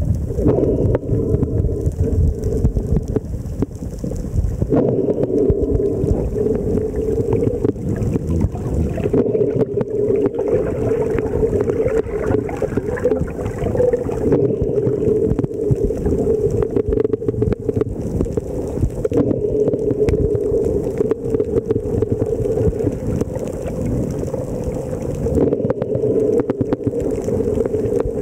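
Underwater sound picked up by a camera in its housing: a steady low rumble of water with a constant hum, and scattered faint clicks throughout.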